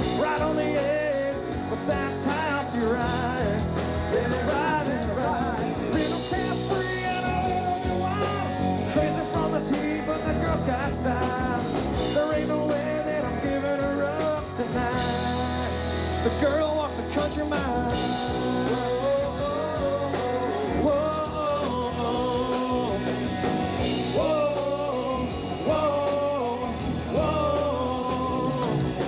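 Rock music: a band with electric guitars and a singing voice.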